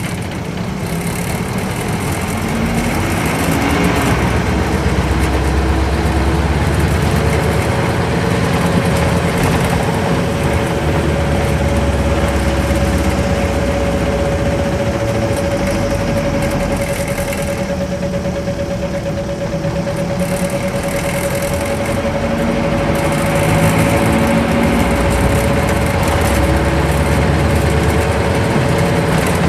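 Isuzu Cubic (KC-LV380L) bus's V8 engine running under way, heard from inside the bus. It grows louder about four seconds in and again near the end. A steady whine runs alongside through most of it.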